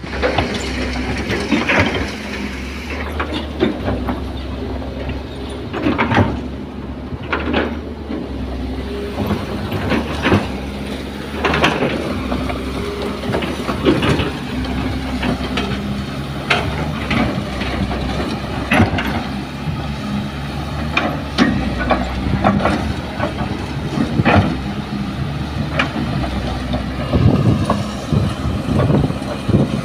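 Kobelco hydraulic excavator's diesel engine running steadily under load while it digs soil, with frequent sharp clanks and knocks of the machine at work.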